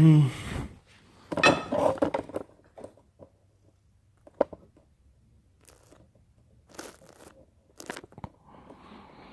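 Scattered crunching and rustling with a few sharp clicks, as of objects being handled and moved about, with a short hiss near the end.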